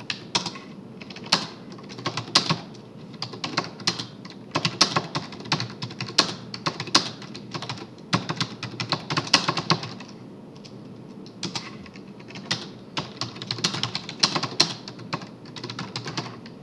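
Typing on a computer keyboard: runs of quick key clicks, with a short pause about ten seconds in.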